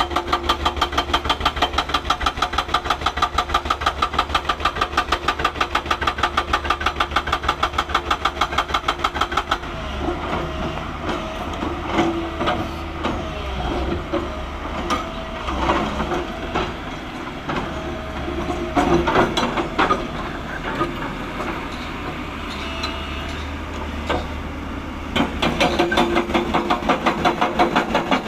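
Diesel engine of heavy road-construction machinery running with a fast, even chugging. For most of the middle stretch the running turns uneven, with a few brief higher tones, and the even chugging returns near the end.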